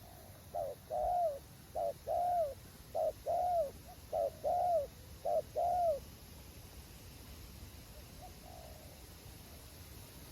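Spotted dove cooing: five quick phrases, each a short note followed by a longer arched coo, then a single fainter call about eight seconds in.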